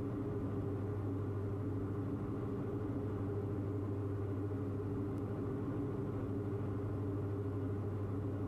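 The engines and propellers of a Diamond DA42 twin running steadily in flight: an even, unchanging hum with several fixed low tones.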